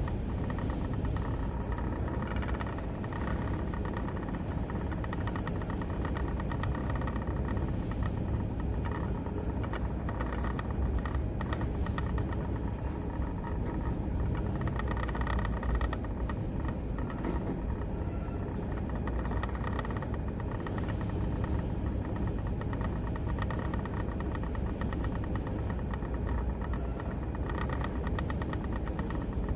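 Steady low rumble of a ship's engines and hull vibration heard inside the wheelhouse, with a higher hum that swells and fades every few seconds.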